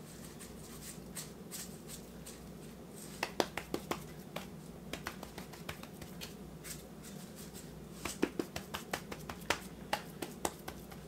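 Seasoning shaker shaken over raw pork ribs, giving two bursts of quick sharp rattling clicks, about three seconds in and again around eight seconds.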